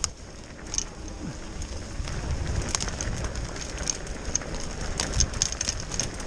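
Mountain bike rolling over a wet dirt singletrack trail: a steady low rumble of tyres and wind on the microphone, with scattered sharp clicks and rattles from the bike and rain.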